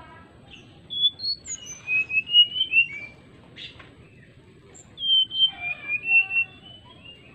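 Brown-chested jungle flycatcher singing: two phrases of clear, fluting whistled notes, one starting about a second in and another about five seconds in, each lasting about two seconds.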